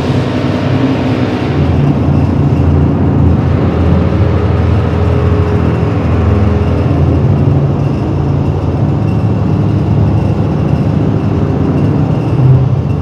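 Loud experimental electronic noise from radio equipment and a mixer played through a PA: a dense, steady low drone with hiss on top, the hiss thinning out about three seconds in.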